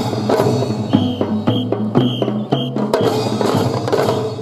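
Children's drum-and-fife band playing a marching tune: drum strokes and percussion under a held melody. The music winds down near the end.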